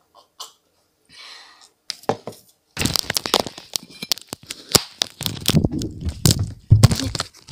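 Handling noise on the recording device as it is carried and fumbled: loud irregular crackling, rubbing and knocks right on the microphone, starting about three seconds in and stopping abruptly near the end.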